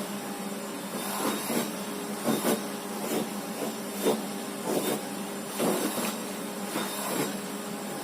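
Vacuum cleaner running steadily, its nozzle being drawn over a cat's fur, a hum with a hiss that swells briefly about once a second.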